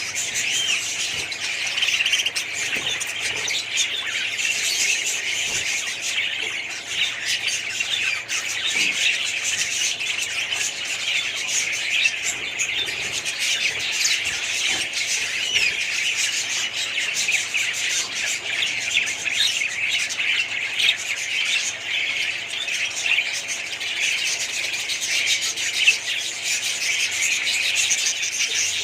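A large flock of budgerigars chattering together in a continuous din of overlapping chirps, warbles and squawks.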